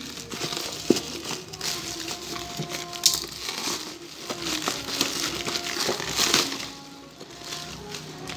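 Clear plastic wrap crinkling and rustling in several bursts as it is pulled off a cardboard parcel, dying down near the end, with quiet background music underneath.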